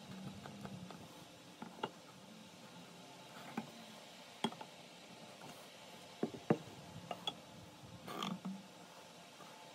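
Scattered light clicks and taps of a small steel square and pencil being set against and lifted off timber while joinery lines are marked out, the sharpest pair just past six seconds, with a short scuffing rustle a little past eight seconds.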